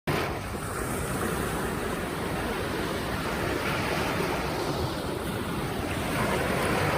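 Ocean surf washing onto a beach, a steady rush with gentle swells in loudness, mixed with breeze.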